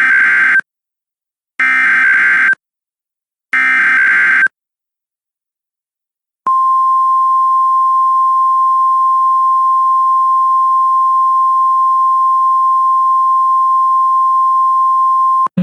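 Emergency Alert System SAME header: three harsh digital data bursts, each about a second long and two seconds apart. After a short silence comes the single-tone NOAA Weather Radio warning alarm, one steady beep held for about nine seconds, which signals that a warning message is about to follow.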